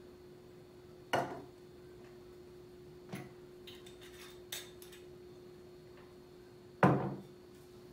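A stainless steel tumbler and a glass bottle set down on a wooden table: two solid knocks, one about a second in and one near the end. In between come a few light clicks of the bottle's screw cap being turned, over a steady low hum.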